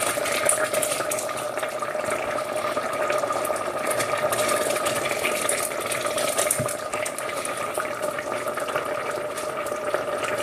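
A pan of risotto simmering with stock, crackling softly over a steady hum.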